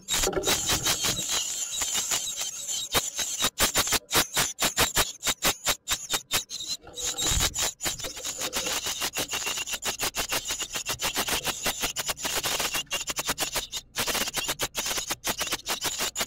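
A brood of great tit nestlings begging inside a wooden nest box: a dense, rapid run of short, high calls that breaks off briefly a couple of times.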